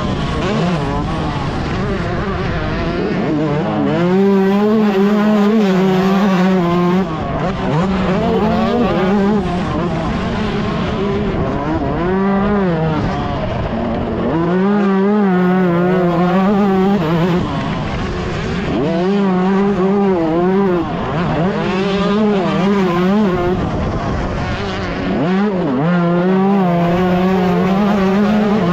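Yamaha YZ125's two-stroke single-cylinder engine under hard riding, loud and continuous, its pitch climbing and dropping back again and again as the throttle opens and closes.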